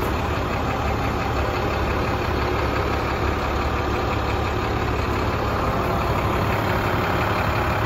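A 7.6-litre MaxxForce DT466 inline-six turbo diesel idles steadily in a 2010 International 7400 dump truck.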